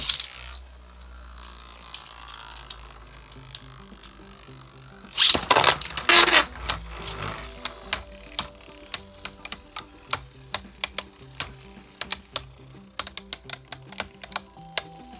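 Plastic 3D-printed Beyblade tops spinning and colliding in a stadium. A loud burst comes at the start, loud grinding clashes follow about five seconds in, and then a long run of sharp clacks, several a second, as the tops strike each other. Background music plays underneath.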